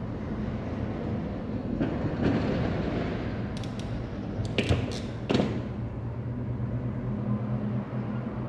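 Handling noises from hands working on parts: a rustle, then a quick run of sharp clicks and a knock, over a steady low hum.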